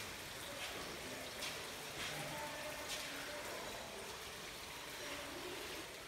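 Water trickling and dripping down a wet sandstone wall: a steady, faint hiss with a few small splashes.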